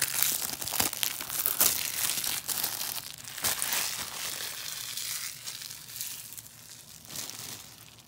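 Plastic shrink wrap crinkling and crackling as it is torn off a Blu-ray case, thinning out over the last few seconds.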